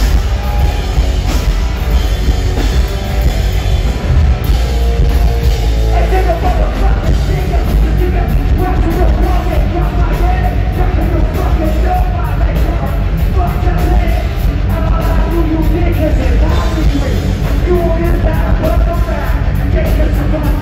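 Loud live alternative metal band, heard from the crowd: distorted guitars, heavy bass and drums, with a vocalist singing over them from about six seconds in.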